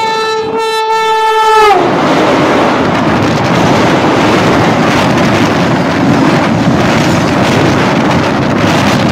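Vande Bharat trainset's horn sounding as the train approaches head-on on the next track. The horn is steady, then drops in pitch and stops as the front passes, just under two seconds in. The loud rush of the trainset's coaches speeding by close alongside follows.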